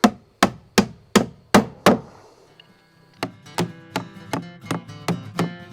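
A hammer driving a nail into a wooden board: six quick blows, about two and a half a second. About three seconds in, strummed acoustic guitar music begins.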